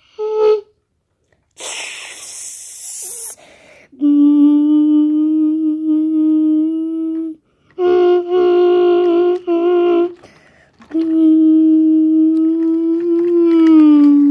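A person imitating a train horn with the voice, in held hums: a long blast, a few shorter blasts, then another long one that dips in pitch at the end. A brief hiss comes early on.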